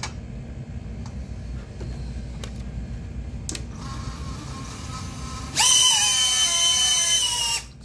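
VCI 0702 30,000 kV brushless micro motors on a quad whoop drone running up in a static thrust test. A few light handling clicks come first, a faint low whine starts about four seconds in, then a loud high-pitched whine of several tones at full throttle holds for about two seconds and cuts off suddenly near the end.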